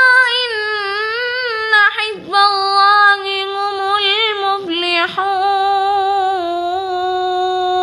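A high-pitched voice recites the Quran in a melodic chanting style, drawn out in long held notes with wavering ornaments on the pitch. There are short breaks about two seconds in and near the middle, and it settles onto a steadier, lower held note over the last few seconds.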